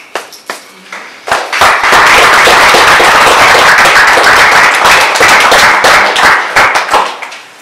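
Audience applauding: a few scattered claps, then steady dense clapping for about five seconds, which thins out and stops near the end.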